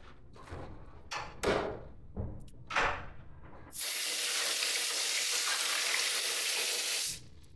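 A few short rustles, then a sink faucet runs water over hands into the basin for about three seconds, starting and stopping abruptly.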